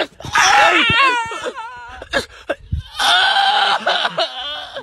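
A young man's exaggerated wailing cry: two long wavering wails with a short pause between them.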